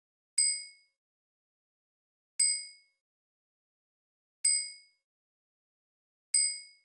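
A bright ding sound effect struck four times, about two seconds apart, each ring fading within half a second. The dings mark each new line of text popping up on the slide.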